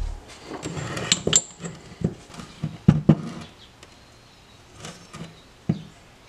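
Pieces of steel billet clinking and knocking against each other and on a steel worktable as they are stacked and handled, in a dozen or so separate strikes, with the loudest pair about three seconds in and a last knock near the end.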